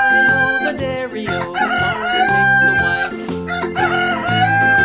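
Rooster crowing, the call rising and then held, repeated about every two seconds over background music.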